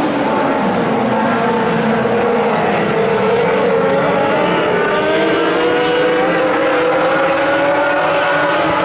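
Several small dirt-track race car engines running at once as the pack laps the oval, their pitches overlapping and slowly climbing in the second half.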